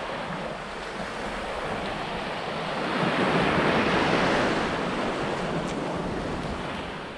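Sea waves washing onto the shore, swelling about three seconds in and then easing off, with wind buffeting the microphone.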